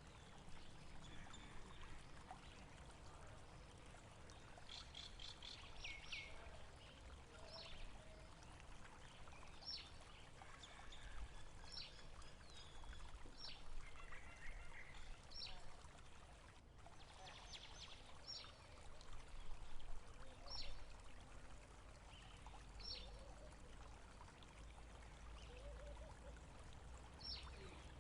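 Faint flowing water with a small bird calling over it: short high calls repeated about every two seconds, and two quick trills, one about five seconds in and one about seventeen seconds in.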